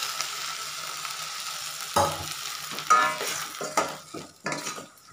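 Sizzling in a steel pot of tempered cucumber and onions under freshly added boiled toor dal, then a steel spoon stirring and scraping through it, with a knock against the pot about two seconds in. The sizzle dies down toward the end.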